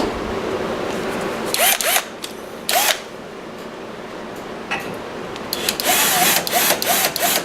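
Cordless drill/driver turning a tap through a tapping aid, run in short trigger bursts, each spinning the motor up and back down. There are a few single bursts early on, then a quick run of about five pulses near the end.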